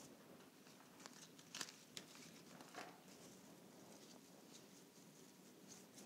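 Near silence, with a few faint clicks and rustles in the first half as fresh flower stems and leaves are handled and tucked into an arrangement.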